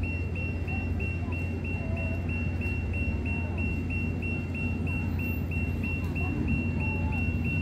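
Electronic crossing signal beeping: short, identical high beeps at about three a second, over a steady low city rumble.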